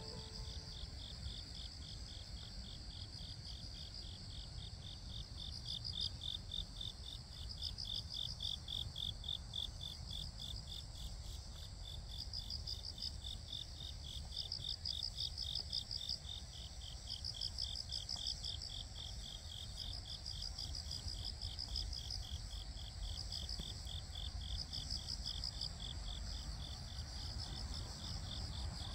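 Crickets singing: a steady, rapidly pulsing trill, with a second, higher trill starting and stopping in phrases every couple of seconds, over a low steady rumble.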